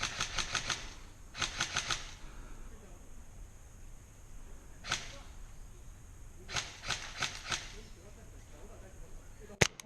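Airsoft guns firing in quick strings of shots: about six at the start, five more about a second and a half in, a single shot near five seconds, another string of five around seven seconds, and two sharper, louder cracks near the end.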